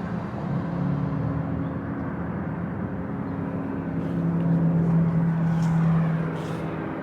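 Steady mechanical hum from an engine or motor, with a low tone that swells louder for a couple of seconds past the middle.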